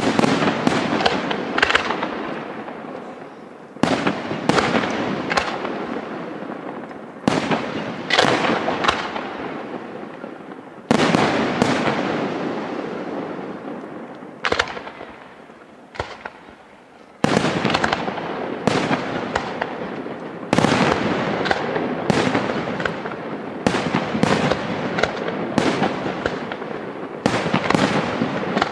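Aerial firework shells bursting in quick succession, each sharp bang trailing off in a long rumbling echo. The bursts thin out to a lull about halfway through, then come thick and fast again.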